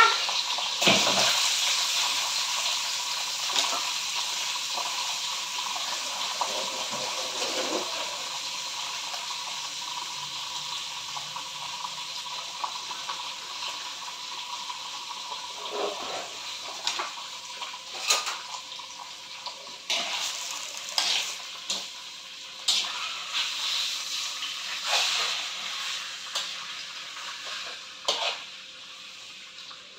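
Pieces of tilapia sizzling in hot oil in a wok: the sizzle starts sharply about a second in as the fish goes in, then fades slowly as the fish is seared to firm it up. From about halfway on, a spatula clinks and scrapes against the wok now and then.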